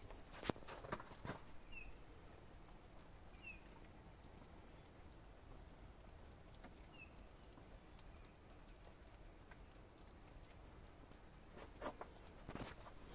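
Near silence with a faint low rumble. A few sharp clicks of handling come about half a second and a second in and again near the end, and three faint, short, high chirps fall in the first seven seconds.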